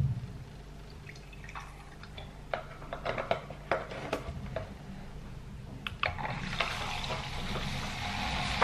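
Milk poured from a carton into a milk frother jug: a few handling clicks of the lid and carton first, then a steady pour from about six seconds in that builds slightly as the jug fills.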